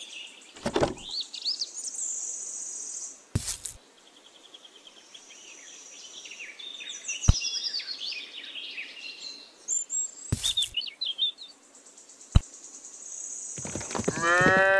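Birds chirping, broken by a few short sharp knocks, then a cow mooing, starting near the end with one long, level call.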